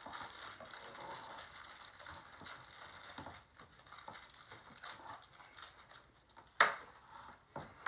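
Handling noises as a floorstanding loudspeaker and its packaging are moved into position: scattered light knocks and clicks, with one sharp knock about six and a half seconds in.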